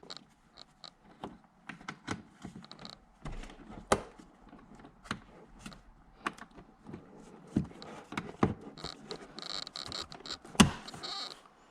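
Plastic clips and trim of a car door panel being handled: a string of irregular clicks and knocks with light scraping and rustling, the loudest knock about ten and a half seconds in.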